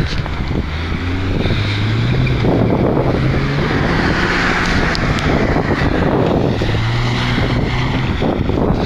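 Nissan Patrol 4x4 engine revving hard under load as it ploughs through deep snow, its pitch climbing and dipping as the driver works the throttle, with a broad rush of noise at its loudest about four seconds in.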